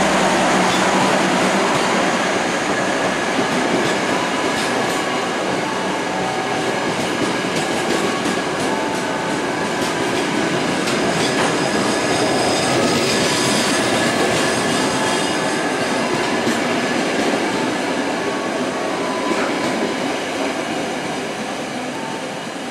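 Passenger train coaches rolling past close by on the track, with steady wheel-on-rail noise and brief high wheel squeals now and then. The sound eases off slightly near the end as the last car goes by.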